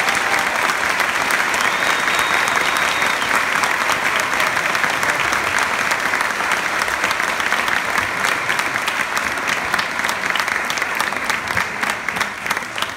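Large audience applauding, dense and steady, then thinning into more distinct individual claps toward the end.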